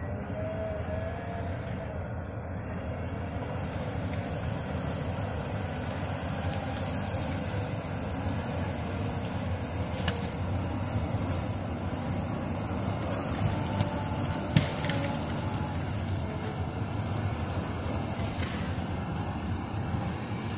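Caterpillar 525D grapple skidder's diesel engine running steadily under work, with a wavering whine over it. A few sharp knocks break through, the loudest about two-thirds of the way in, as the grapple handles a log.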